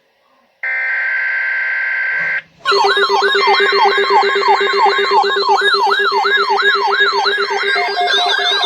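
Electronic emergency alert attention signal. A short steady electronic tone about half a second in gives way, near the three-second mark, to a loud siren of rapidly repeating pitch sweeps, about three a second, layered over a steady low tone.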